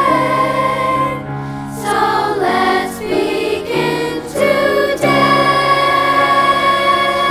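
Music with a choir singing long held chords; in the middle the voices move through several changing notes before settling on a held chord again.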